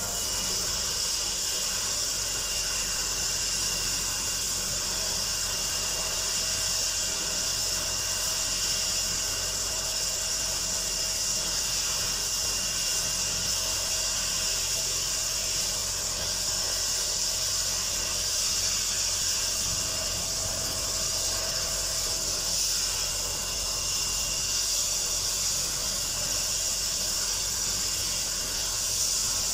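Helicopter turbine engines running with the rotors turning while the air ambulance sits on the ground: a steady high hiss with a faint steady whine.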